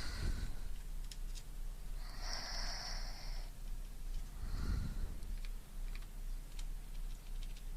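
A person breathing close to a binaural microphone: one long breath about two seconds in, a shorter breath with a low puff on the mic near the middle, and faint clicks in between.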